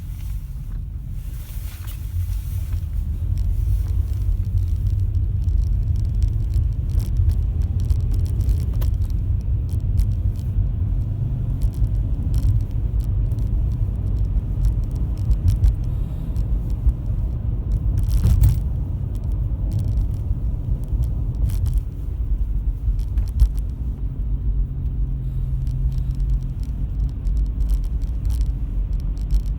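A 2005 Toyota Estima driving, with a steady low rumble and a motor-like hum from a worn right rear hub bearing. Scattered faint clicks sit over the rumble.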